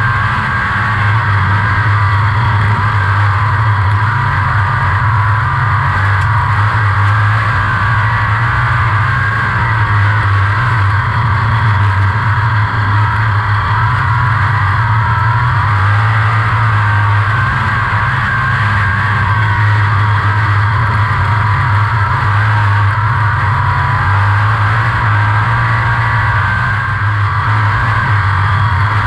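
A 360 sprint car's V8 engine running hard at racing speed, heard from the cockpit. Loud and steady, with small shifts in pitch through the laps.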